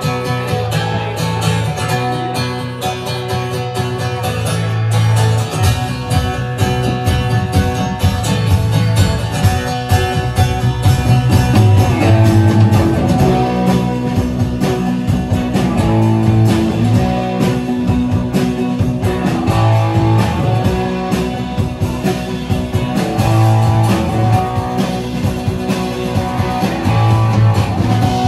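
Live band playing an instrumental passage led by acoustic guitar, with electric guitar and upright bass; drums come in about five seconds in.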